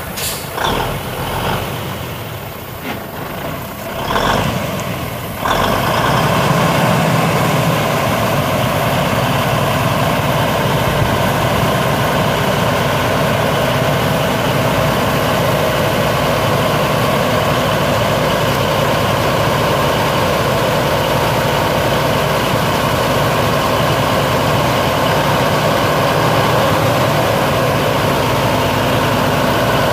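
A few knocks, then about five seconds in a big Cummins NTC335 diesel truck engine comes in suddenly and idles steadily.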